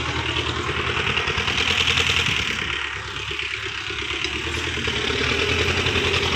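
An engine idling steadily, a low hum that carries on unchanged, with a hissing rush over it.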